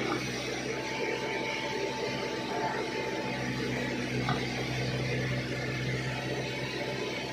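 Backhoe loader's diesel engine running steadily, with a short knock about four seconds in.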